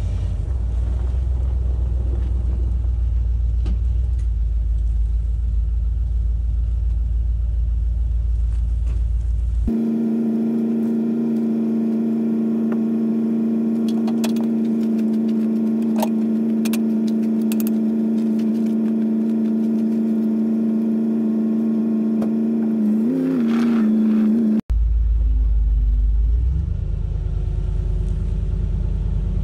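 Motor vehicle running: a heavy low rumble, then a cut to a steady humming drone with a few light clicks, then a cut back to the low rumble, which rises briefly in pitch.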